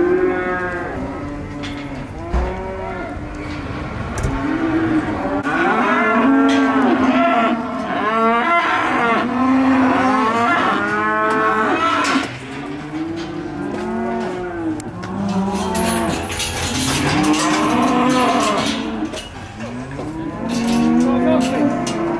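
Many cattle mooing over one another, their calls overlapping almost without a break.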